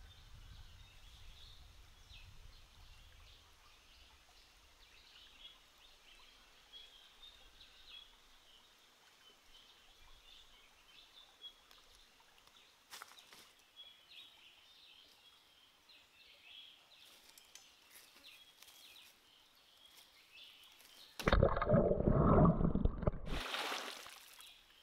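Quiet stream-side ambience with faint, flickering high chirping. About 21 seconds in, loud splashing and sloshing of water lasts a couple of seconds, then trails off into a shorter, hissier splash.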